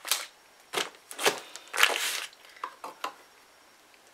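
Several short rustles of a wrapper being handled as a piece of modelling clay is pulled from it, the longest about a second and a half in, followed by a few light taps.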